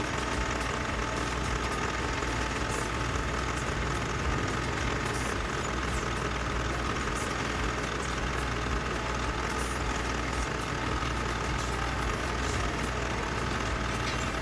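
The newly replaced auxiliary (AC condenser) fan motor of a 2020 Mitsubishi Triton running steadily, with a low drone and a thin steady whine. The sound shows the new motor is working.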